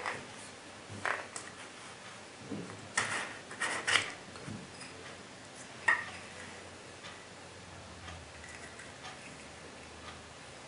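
Small clicks and taps of handling as the strap-joined rubber lens caps are pulled off a rifle scope and handled. There is a cluster of sharper clicks about three to four seconds in and another about six seconds in, then only faint, scattered ticks.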